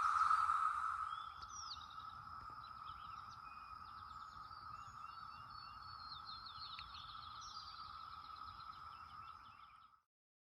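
Brood X periodical cicadas droning in a steady chorus, loud at first and dropping to a softer level about a second in, with birds chirping over it. The sound fades and cuts off near the end.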